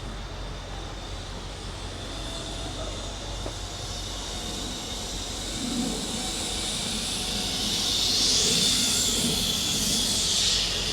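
Zip line trolley running along its steel cable: a high whirring hiss that swells steadily as a rider approaches and is loudest near the end.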